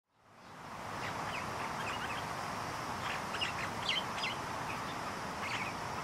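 Small birds chirping in short, quick calls over a steady rushing background, fading in over the first second.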